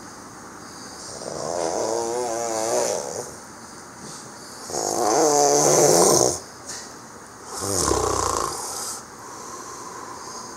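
A man snoring loudly: three long snores about three seconds apart, the first two with a wobbling, fluttering pitch, the third rougher and lower.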